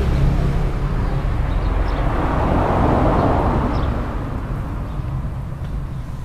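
Road traffic rumbling steadily, with one vehicle passing that swells and fades, loudest about three seconds in.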